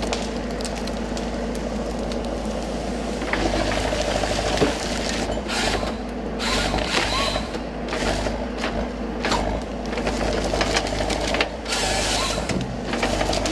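Forestry harvester with a Log Max harvesting head working: the machine's engine runs steadily under repeated short bursts of louder mechanical noise every second or two.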